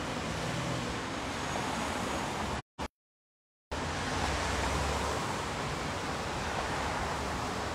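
Steady rushing background noise of an outdoor street, with no music or speech. The sound cuts out completely for about a second partway through, then resumes.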